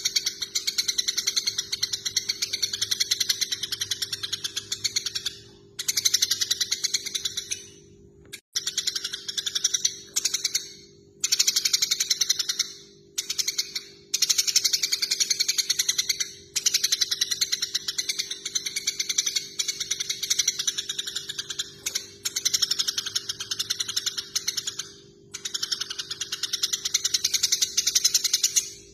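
Eurasian tree sparrows giving fast, excited chattering calls, typical of sparrows fighting. The chattering comes in long runs a few seconds each, broken by brief pauses.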